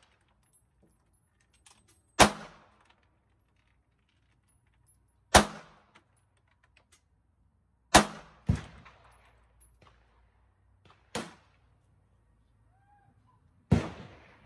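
Semi-automatic pistol fired one shot at a time, several seconds apart: six sharp reports, two of them fainter, each with a brief ringing tail.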